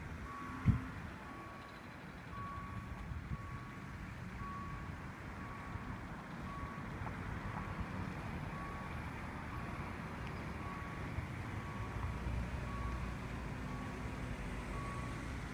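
Level-crossing warning bell beeping about once a second, a short, even electronic tone warning that the barriers are coming down for an approaching train. Road traffic rumbles underneath.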